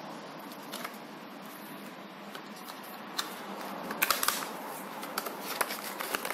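Light clicks and taps of small objects being handled on a tabletop, a few at first, then a cluster about four seconds in and more near the end, over a steady hiss.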